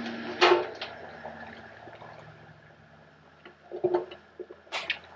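A metal ladle scooping corn and crawfish out of a large pot of crawfish boil water, with splashing and dripping. Sharp clanks of the ladle against the pot come about half a second in and again twice near the end.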